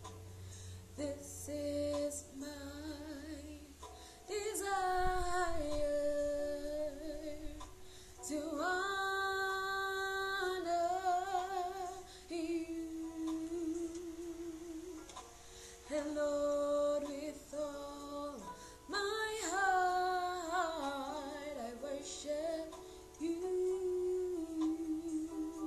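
A woman singing a slow worship song solo, in phrases of a few seconds with long held notes and vibrato, and short breaths between them.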